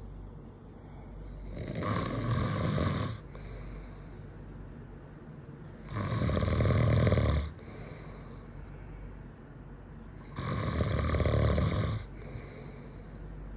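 A man snoring: three long snores about four seconds apart, each followed by a softer breath.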